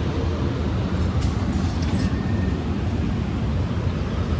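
Amtrak Capitol Corridor bilevel passenger cars rolling past along the platform: a steady rumble of steel wheels on the rails.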